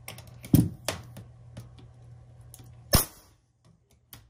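A few sharp knocks and clicks, the loudest about three seconds in, over a low steady hum that stops soon after it.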